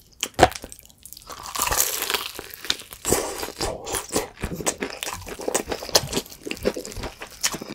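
Close-miked crunching of crispy fried chicken crust, coated in shrimp and garlic flake crumbs, being bitten and chewed: a sharp bite crack about half a second in, then a dense run of crackling crunches as the crust is chewed.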